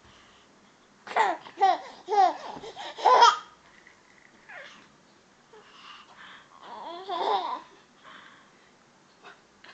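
Six-month-old baby girl laughing and babbling in short high-pitched bursts. There is a run of four about a second in, the last the loudest, and then a longer one around seven seconds.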